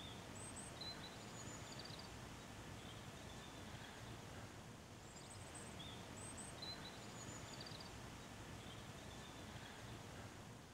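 Faint outdoor ambience: a steady low hiss with scattered short, high bird chirps and calls.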